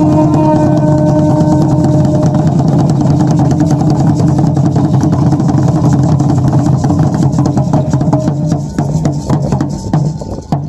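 Ceremonial dance music: conch-shell trumpets holding long steady notes over the rapid clatter of the dancers' seed-pod ankle rattles and drum beats. The held notes stop about nine seconds in, leaving the rattles and drum.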